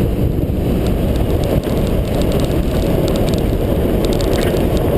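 Toyota Land Cruiser running steadily off-road, a dense low engine and drive rumble with faint scattered clicks over it.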